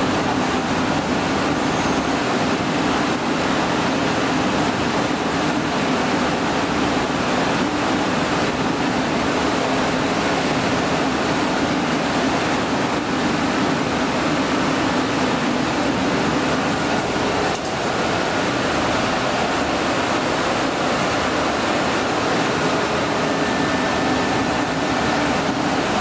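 DMG CTX 510 Eco Line CNC turning center running: a steady rushing noise with a low, even hum underneath.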